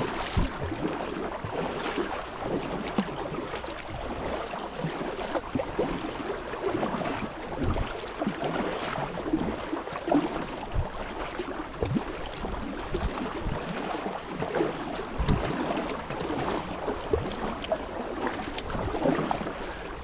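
Kayak being paddled: the paddle blades dipping and splashing in the river, with water dripping and lapping against the hull in small irregular splashes.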